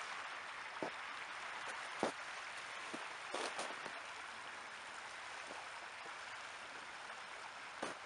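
Steady rushing of open river water flowing past a snowy bank, with a few light clicks.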